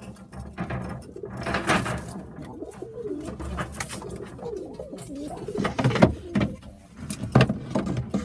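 Pigeons cooing in a loft: a run of wavering coos through the middle, broken by several short sharp knocks.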